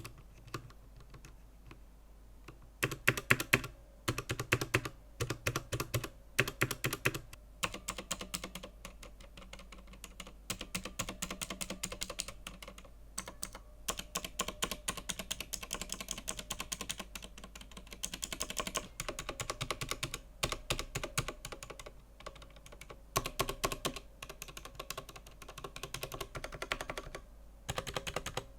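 Typing on a mechanical keyboard with clicky Outemu Blue switches: rapid runs of sharp keystroke clicks in bursts, broken by short pauses.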